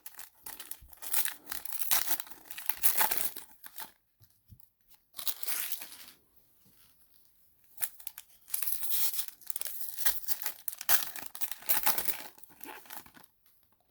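Trading card pack wrappers being torn open and crinkled by hand, in several bursts with short pauses between.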